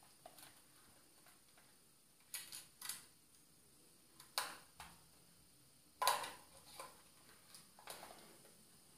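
Faint small clicks and knocks, about eight of them in irregular pairs and singles, from a SIM card and battery being fitted into a GSM alarm unit. The loudest click comes about six seconds in.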